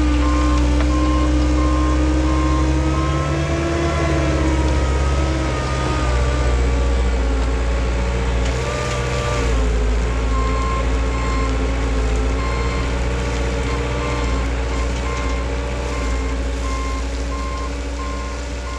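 The engine of a bucket loader runs under load, its revs rising and falling while it spreads gravel, and a reversing alarm beeps in a steady on-off pattern, mostly in the second half.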